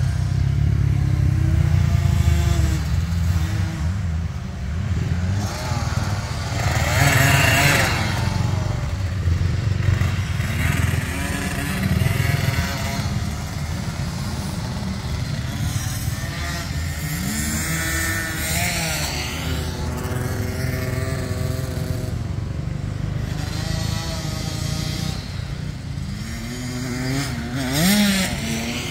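Motocross dirt bike engines revving up and down on a track, their pitch rising and falling over a steady low rumble. The sound swells louder three times, about a quarter of the way in, midway and near the end.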